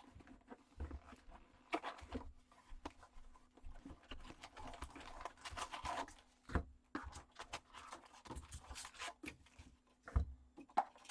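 Cardboard retail box of trading-card packs being torn open and the foil packs inside handled: irregular tearing, rustling and crinkling with scattered clicks. There are two low thumps, about six and a half seconds in and again near ten seconds.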